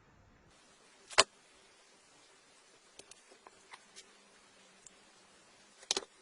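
Scattered sharp clicks and taps over a faint hiss: a loud single click about a second in, a few light ticks in the middle, and a double click near the end.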